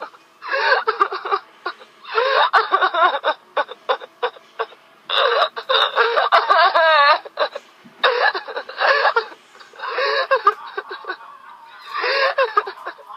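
A woman crying loudly, sobbing in short bursts broken by catching, hiccuping breaths, with a high wavering wail about six seconds in.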